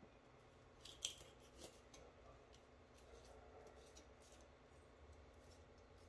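Kitchen shears cutting through the backbone and rib bones of a whole raw chicken. A few sharp snips, the loudest about a second in, then fainter clicks as the blades work along the carcass.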